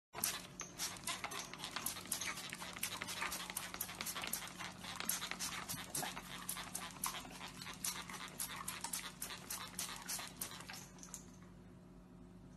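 A trigger spray bottle squirted rapidly, several times a second, at a German Shepherd's open mouth, with the dog panting. The spraying stops about a second before the end.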